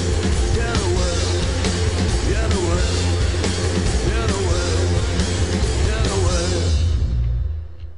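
Rock band playing live: heavy bass, steady drums and wavering, swooping melodic lines, loud throughout, then the music stops and dies away over the last second.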